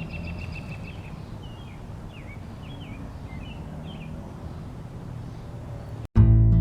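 Birds chirping, a quick trill followed by several short, pitch-bending notes, over a low steady outdoor rumble. Just after six seconds the sound drops out and loud acoustic guitar music begins.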